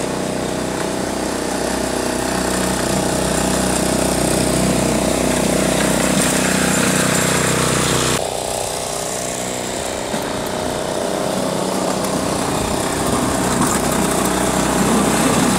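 Small engine of a Wolf-Garten ride-on garden tractor running steadily while it pushes snow with a front blade. The sound changes abruptly about halfway through and grows louder near the end.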